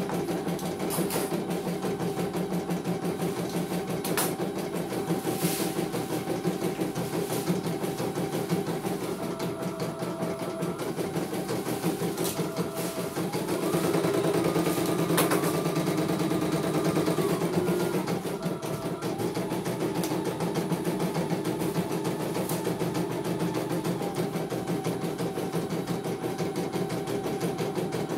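CNY E900 computerized embroidery machine stitching a design: a fast, even needle clatter with a motor whine that steps to a different pitch every few seconds, a little louder for a few seconds in the middle.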